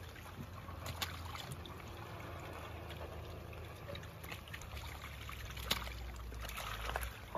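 Pond water trickling and sloshing as live fish are handled in a seine net in the shallows, with a few sharp splashes, the loudest about three-quarters of the way through.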